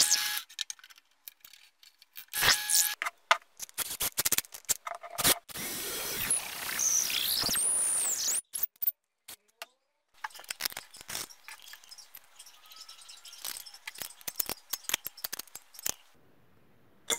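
Workshop tool sounds: a short burst of the bench drill press, then a cordless drill running for about three seconds with its pitch rising and falling, then a run of small metal clicks and taps from a nut being tightened with a wrench on a threaded rod.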